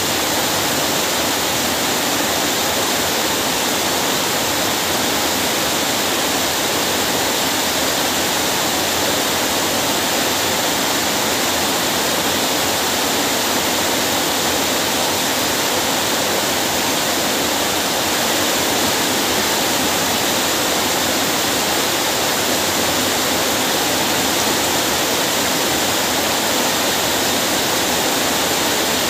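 Steady, even hiss of heavy rain falling, with no break or change.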